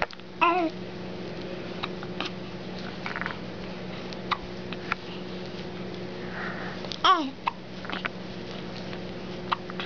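Hiccups coming every second or two as soft short clicks, with two louder, squeaky voiced hiccups: one about half a second in and one about seven seconds in.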